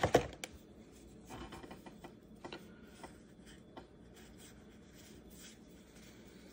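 Small cardboard baseball trading cards being slid and flipped through the hands: soft rustling and light clicks of card stock rubbing together, loudest at the very start and faint after that.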